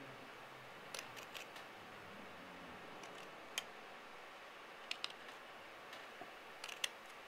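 Scissors snipping through the fabric backing of a piece of fur: short, faint snips in small groups of two to four, spaced a second or more apart.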